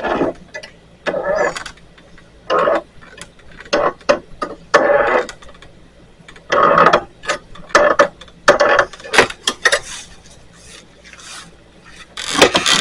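Steel turnbuckle being tightened stroke by stroke, with short bursts of metal creaking and grinding roughly once a second. The turnbuckle is under heavy tension as it pulls a sagging gate back up.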